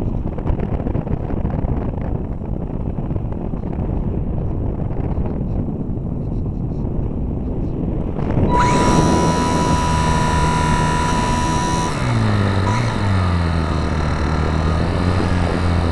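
Wind rushing over the microphone of a camera on a flying RC Super Cub model plane. About halfway through, the sound changes abruptly to a clearer hum of the plane's motor with a thin, steady high whine. About three-quarters of the way through, the motor's pitch drops.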